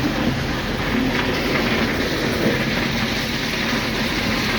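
Ballast work train running: a steady noise over a low engine drone.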